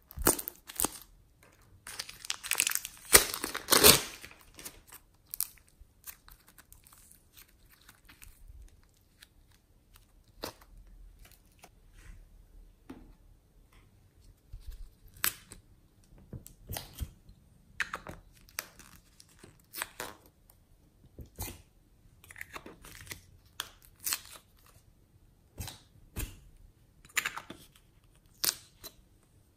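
Plastic of a clay-filled piping bag crinkling as it is handled, loudest about two to four seconds in. Then scattered short clicks and crackles from hard plastic gem-shaped containers being handled and opened.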